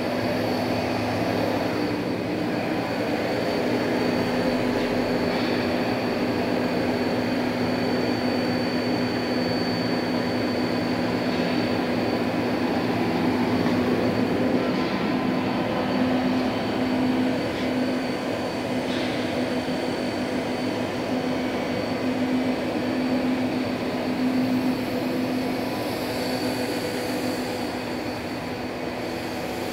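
Steady machine hum of a powered-up Daewoo DMV-500 CNC vertical machining center, a constant low tone with a thin high whine over it.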